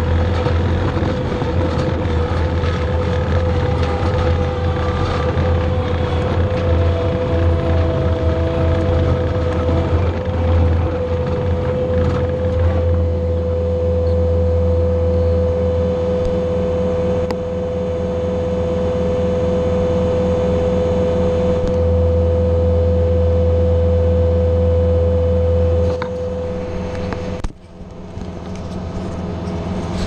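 Skid steer's diesel engine running steadily under working load, with a constant high whine over the engine hum. A couple of seconds before the end the sound drops out briefly, then builds back up.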